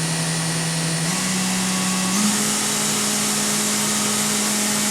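Fanuc Robodrill Alpha-T21iD machining-center spindle running at low speed with a steady whine over a hiss. Its pitch steps up twice, about a second in and about two seconds in, as the spindle speed override is raised.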